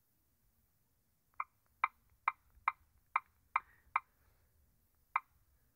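Key-press clicks from a Kindle tablet's on-screen keyboard as a name is typed in: seven short ticks at about two a second, then one more near the end.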